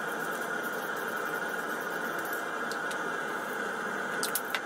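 Paint sprayer hissing steadily as a coat of paint goes onto a model part.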